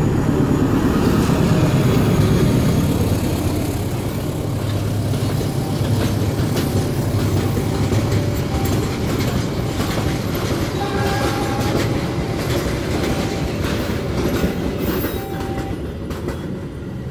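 A freight train climbing slowly past a level crossing. The diesel-electric locomotive's engine runs heavily as it passes in the first few seconds. Then the loaded ballast hopper wagons rumble by, their wheels clacking over the rail joints and crossing, with a few brief wheel squeals.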